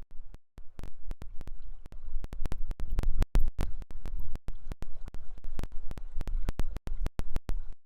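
Steady rush of river water with a low rumble, broken by many sharp crackling clicks.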